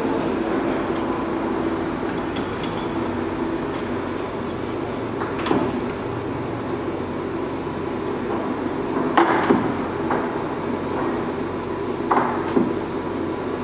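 Axelson engine lathe's geared headstock running with a steady mechanical hum. Sharp metal clunks come from about five seconds in, a pair near the middle and another pair near the end, as the headstock levers are shifted.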